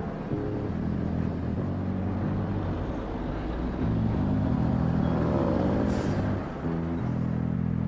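Heavy vehicle engine running loud and steady, its pitch shifting up and down, with a short hiss about six seconds in.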